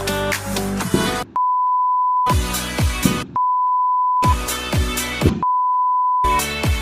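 Pop backing music with deep falling bass drum hits, cut out three times by a steady one-second beep tone that takes its place before the music resumes.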